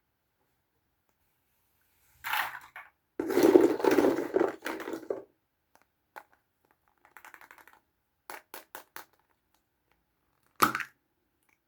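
Small Kinder Surprise plastic toys and their packaging being handled. A crinkling, crushing stretch about two seconds in, then a few light clicks and a short rattle, and a sharp knock near the end.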